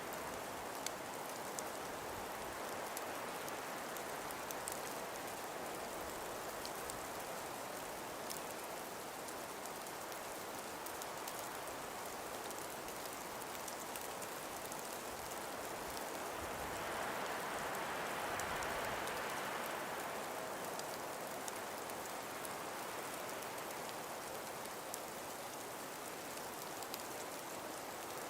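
Calm winter breeze through trees: a steady hiss that swells in a gust a little past the middle, with faint scattered ticks.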